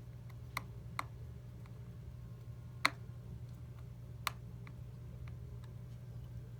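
A few light, sharp clicks and taps of small tools and tiny screws against an iPhone 11's internal parts during reassembly, the loudest about three seconds in. A steady low hum runs underneath.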